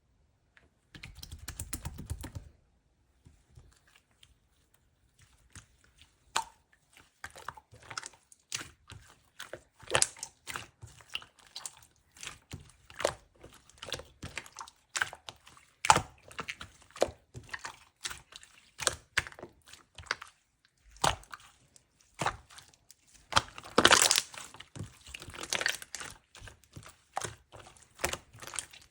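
Two-layer cloud slime being pressed and stretched by hand, giving repeated crunchy crackles and pops, with a denser stretch of crackling late on. A short low rumbling handling noise comes near the start.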